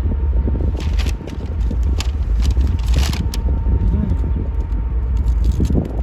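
Steady low outdoor rumble of wind on the microphone and city traffic, with a few crackling crinkles of a clear plastic food glove and takeout container. The crinkles come about a second in and again around three seconds in.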